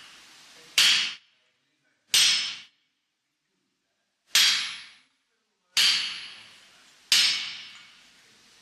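Blacksmith's hammer striking iron on an anvil: five separate blows about a second and a half apart, each ringing out briefly before it dies away.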